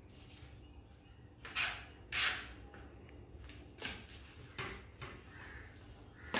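Kitchen knife cutting onions on a plastic cutting board: a few short knocks of the blade against the board, irregularly spaced.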